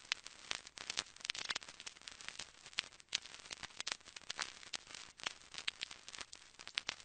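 Crackling static: a steady hiss scattered with irregular sharp clicks and pops, several a second.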